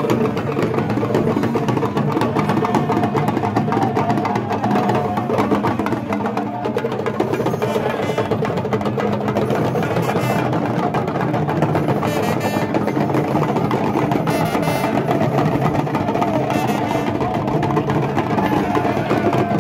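A talking-drum ensemble playing a steady, dense rhythm of quick strokes.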